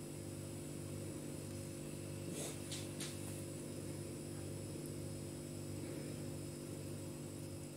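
Steady low electrical hum, with two or three faint ticks a few seconds in.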